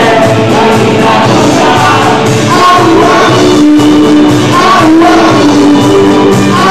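Live dance band playing: a woman sings lead into a handheld microphone over a drum kit with cymbals and the rest of the band.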